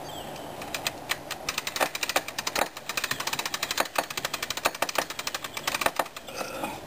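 Rapid, irregular crackling clicks, several a second, as the hide of a hanging buck is cut and pulled away from the carcass. The clicking starts about a second in and stops shortly before the end.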